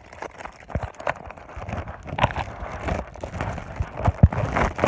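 Rustling and irregular knocks as a new variable timing solenoid is handled and taken out of its packaging, with a couple of sharper thumps near the end.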